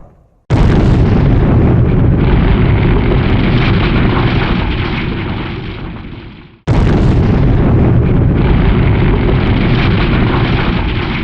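Two big explosion sound effects, one after the other. Each hits suddenly, then a long rumble slowly fades over about six seconds; the second hits about seven seconds in.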